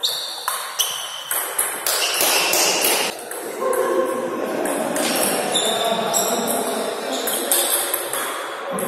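Table tennis ball clicking off rackets and the table over and over during a rally, with a short ringing after some hits.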